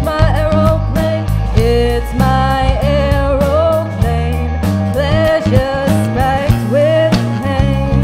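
Live rock band: a woman singing a melody into a microphone over electric bass, electric guitar and a drum kit keeping a steady beat.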